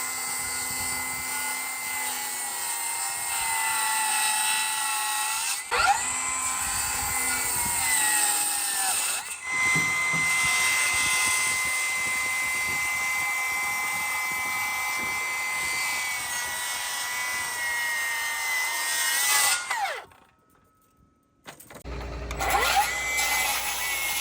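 Milwaukee M18 FUEL 184mm cordless circular saw running at a high whine and cutting timber, its pitch sagging under load during the cuts. It stops briefly near the end, then spins up again with a rising whine.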